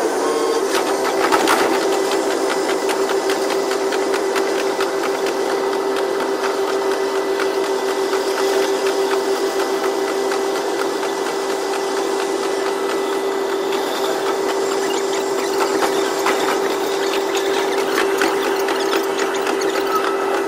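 KiHa 122 series diesel railcar under way, its audio sped up to double speed. A steady, high-pitched engine hum runs throughout, with a rapid patter of clicks and rattles from the running gear.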